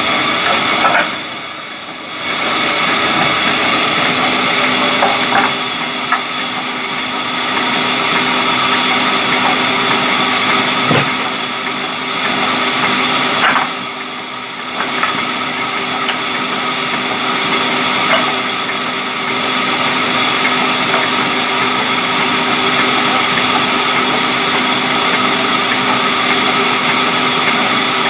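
Large sawmill band saw running and cutting through a mahogany log, a steady machine whine and hum. The level dips briefly twice, and there are a few sharp knocks.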